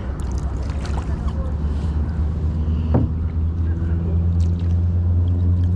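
Sounds from a plastic kayak on the water: a steady low rumble with a single knock about three seconds in. A faint steady droning tone comes in during the second half.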